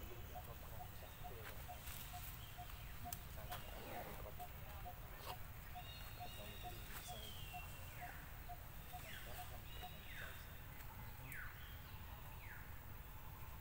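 Faint outdoor ambience with animal calls: a quiet, even series of short pips at about two a second that stops about ten seconds in, and from about six seconds on several short calls falling in pitch, with a few light clicks.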